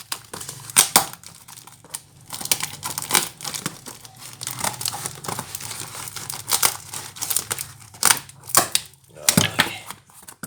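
Packaging being torn open and crumpled by hand, with irregular crackling and ripping as the wrapping layers come off a parcel.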